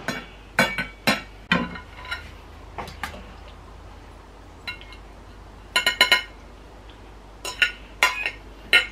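Metal wire-mesh skimmer clinking against a stainless steel colander and ceramic plates as cooked macaroni is scooped out and served: scattered sharp clinks, with a quick cluster of several about six seconds in.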